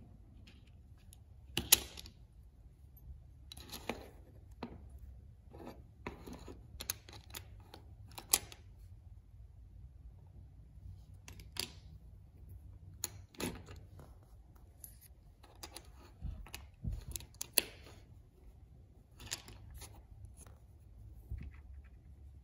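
Parts of a Hot Wheels die-cast toy car, its plastic base and interior tub, clicking and tapping as they are handled and set down on a cutting mat, with a low steady hum underneath. One tap about two seconds in is the loudest.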